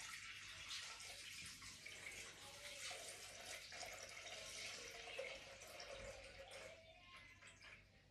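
Water poured in a stream from a jug through the lid opening into a Thermomix TM6 mixing bowl, a faint steady trickle that tails off near the end.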